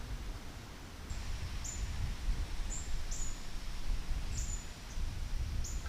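A small bird giving short, very high chirps, about six spread over a few seconds, over a low rumble of wind and handling noise.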